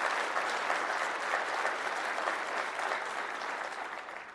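Large conference audience applauding, a dense steady clapping that fades out near the end.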